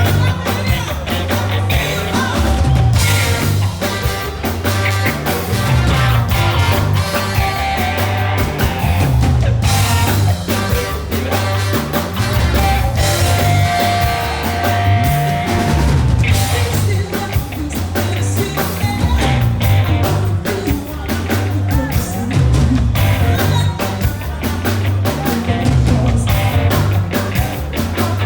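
Live Afro-funk band playing: a pulsing bass line and steady drum beat under guitar and keyboards, with some singing.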